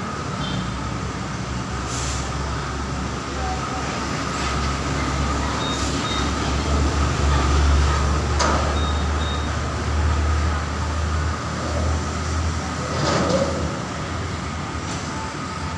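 Steady low rumble of road traffic and engines, with a few sharp metal knocks, about three, from the motorcycles being moved on the truck's steel cargo frame.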